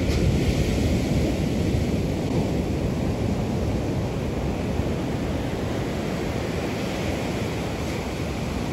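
Wind rumbling and buffeting on the microphone over the steady wash of surf on a beach.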